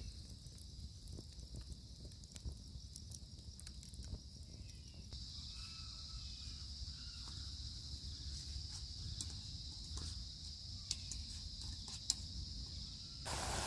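Steady high-pitched trilling of night insects, growing louder about five seconds in, with scattered faint clicks and ticks. Right at the end, vegetables in pork lard start sizzling loudly in the pan.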